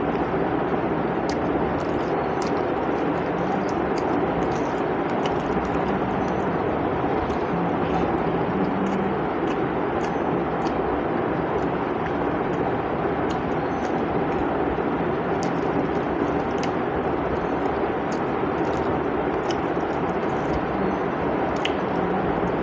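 A steady background noise, with faint clicks and soft smacks scattered through it from eating rice by hand off a plate and chewing.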